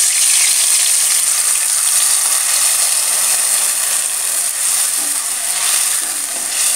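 Watery spice paste of ground cumin, chilli and turmeric sizzling loudly in hot oil in an aluminium karai, the start of frying down the masala. The sizzle eases slowly, and a spatula scrapes and taps the pan a few times toward the end.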